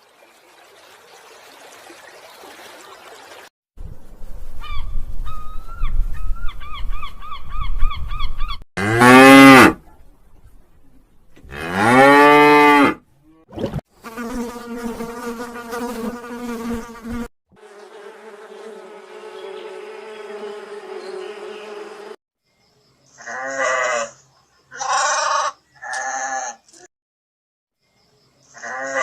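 A string of separate animal sounds cut one after another: a buzzing stretch, two loud long calls that rise and fall in pitch, two steady droning calls, then three short calls near the end.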